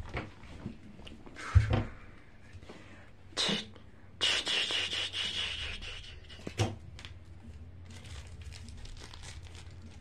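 Rustling and bumping from plush toys being handled on a towel, with a thump about a second and a half in and a longer rustling hiss from about four to six seconds.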